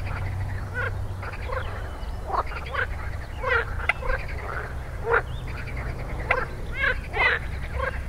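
A chorus of frogs croaking: many short, overlapping calls a few times a second, over a steady low rumble.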